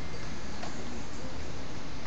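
A horse trotting on the soft dirt footing of an indoor arena: light, regular hoofbeats about twice a second, over a steady low rumble.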